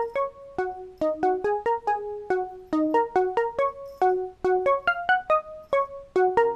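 Background music: a light melody of quick, short keyboard notes, several a second.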